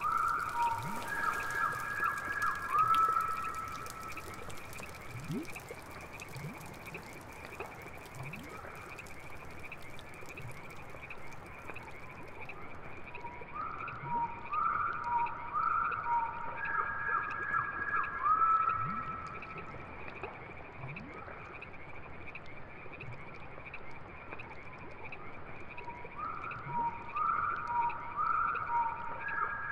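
Swamp chorus of calling frogs: a steady high trilling under groups of short rising calls that return about every thirteen seconds, with low rising croaks scattered between. A high hiss of rain fades away over the first twelve seconds or so.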